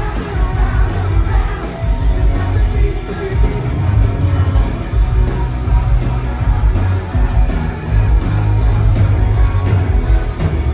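Pop-rock band playing live and loud, with heavy bass and drums.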